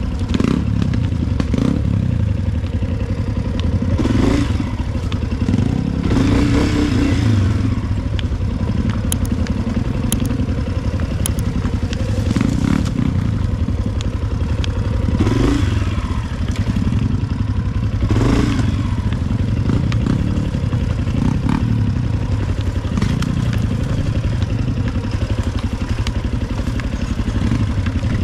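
Single-cylinder dirt bike engine running at low trail speed, with several brief louder surges and clatter and knocks from the bike working over rough ground.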